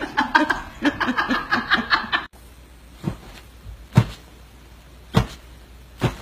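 A person laughing in quick bursts, which stop abruptly about two seconds in. Then four dull thumps, roughly a second apart.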